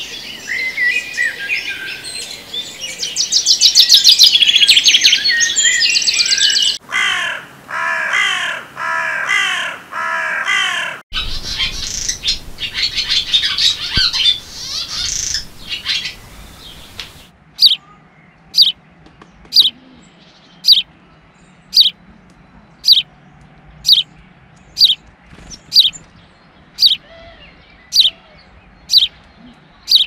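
Garden songbirds singing in several abruptly changing stretches: a dense tangle of chirps and rapid trills, then a run of repeated arching notes, then busy chirping, and finally single sharp high notes repeated about once a second.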